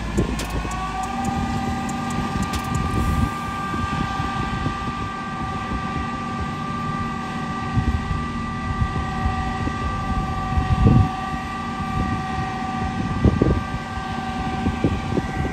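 Concrete mixer truck running during a pour: its pitch rises in the first second and then holds a steady whine over a low rumble. A couple of dull thumps come in the second half.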